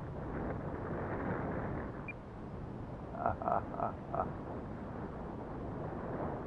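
Strong gusty wind buffeting the microphone. About halfway through, a quick run of about five short croak-like calls.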